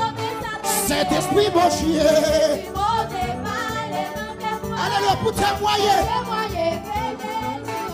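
Church worship singing in Haitian Creole: a male lead voice on a microphone with the congregation singing along, over a steady instrumental backing.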